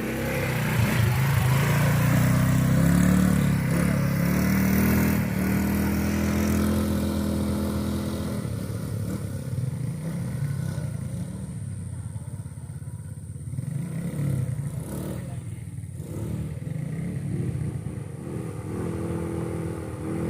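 ATV engine revving, its pitch rising over the first few seconds, then running on and fading after about eight seconds as it pulls away.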